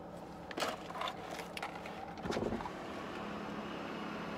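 Steady drone inside a moving car's cabin, with a few sharp clicks and rustles in the first half.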